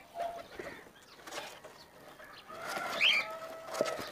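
A released pigeon's wings flapping as it takes off, followed by short chirping calls and clucks from birds in the aviary, with a few clicks and knocks near the end as a wooden nest box is handled.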